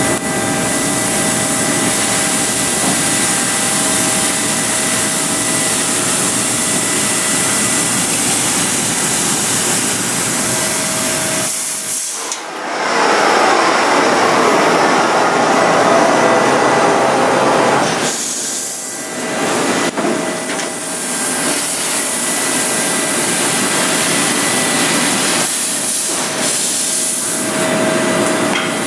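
Mazak Space Gear 48 CNC laser cutter running: a steady loud hiss with a couple of faint steady whine tones. For about six seconds midway it gives way to a denser rushing noise.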